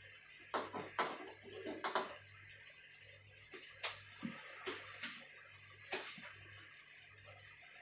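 Cutlery clinking against a plate during eating: about ten light, irregular clinks, clustered in the first two seconds and again around four to six seconds in, over a faint steady hum.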